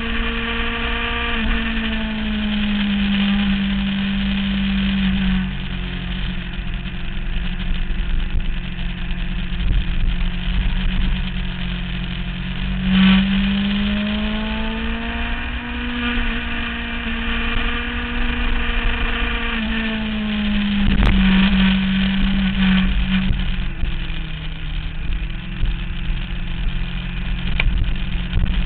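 2009 Kawasaki ZX-6R's inline-four engine running on the move, its pitch rising and falling several times as the rider opens and closes the throttle through a string of corners, over a steady rush of wind.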